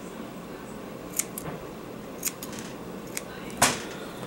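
Scissors snipping cotton wick on a rebuildable dripping atomizer: a few short, sharp blade clicks, the loudest just before the end.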